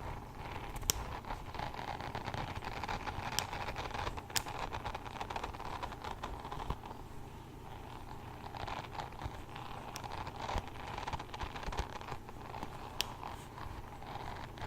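Close-up rustling and crinkling of something handled next to the microphone, with a few sharp clicks.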